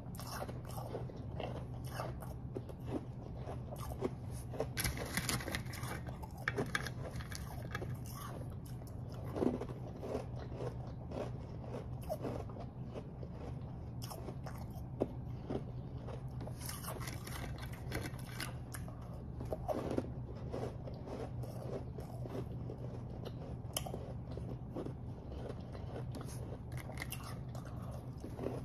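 Close-miked crunching and chewing of refrozen powdery snow ice, a quick irregular run of crisp crunches throughout, over a steady low hum.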